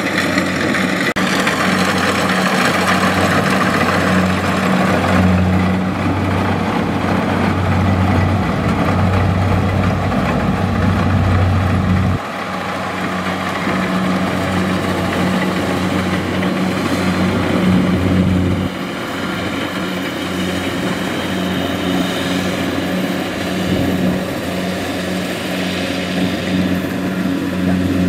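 Kubota DC70 rice combine harvester's diesel engine running steadily under load as the machine cuts and threshes rice, a continuous hum with mechanical noise over it. The level drops abruptly about twelve seconds in and again near nineteen seconds.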